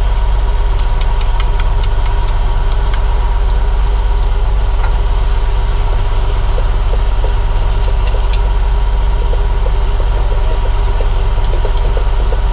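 A fishing trawler's engine running steadily, a deep, even drone with a constant hum over it. Scattered sharp crackles sound on top, thickest in the first few seconds.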